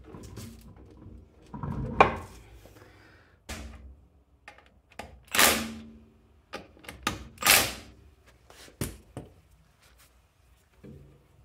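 Metal clinks and knocks of lug nuts and a hand tool being worked onto the wheel studs of an alloy wheel. About halfway through come two louder, short rasping bursts, then a quick run of clicks.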